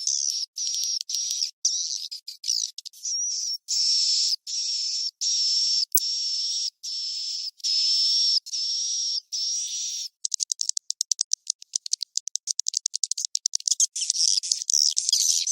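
Swiftlet 'inap' (roosting) lure recording for a swiftlet nest house: a string of buzzy, high twittering chirps, each about half a second long. From about ten seconds in, a rapid run of short clicks takes over, and the chirps return near the end. The recording has been cleaned so that only the high calls remain.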